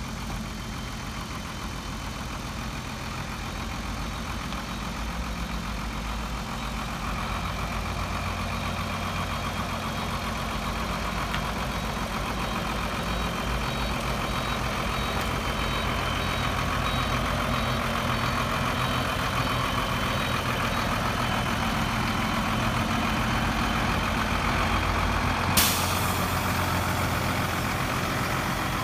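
Sinotruk HOWO heavy truck's diesel engine running steadily, growing louder as the truck draws near. A short sharp hiss comes near the end.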